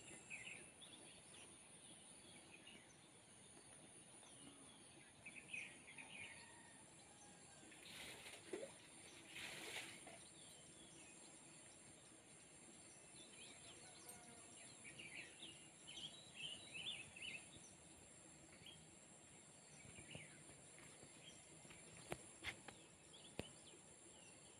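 Quiet rural ambience: scattered faint bird chirps over a steady high-pitched hiss, with two brief rustling swells about a third of the way in and a couple of faint ticks near the end.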